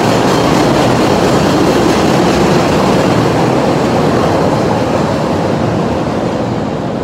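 Elevated train passing overhead on a steel trackway: a loud, steady rumble of wheels on rails that eases a little near the end.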